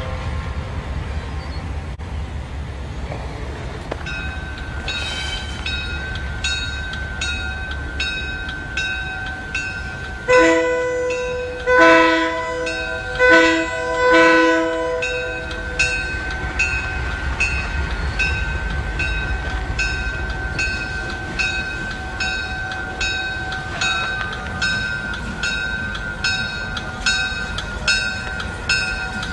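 A diesel freight locomotive's air horn blows the grade-crossing signal, two long blasts, a short one and a long one, about ten seconds in, over the steady rumble of the approaching diesel engine. A grade-crossing warning bell dings steadily from about four seconds in.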